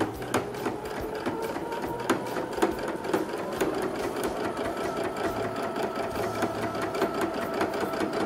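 Electric sewing machine topstitching: a rapid, even run of needle strokes over the motor's hum, the hum rising a little in pitch about three seconds in.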